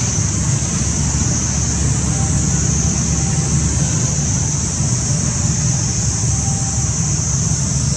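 Steady outdoor background noise: a low rumble under a continuous high-pitched drone, with no distinct event.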